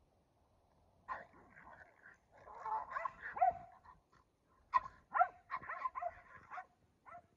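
Dogs barking in play: a Keeshond and a Boston Terrier. The barks come in two quick runs, one starting about a second in and a second starting just before the five-second mark.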